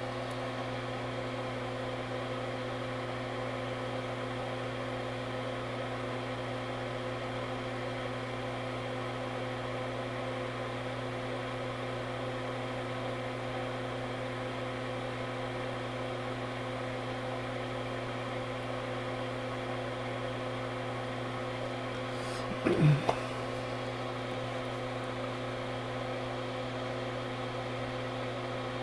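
Steady electrical hum from running workbench equipment: a low drone made of several fixed tones. About three-quarters of the way through there is a brief click and a short falling vocal sound.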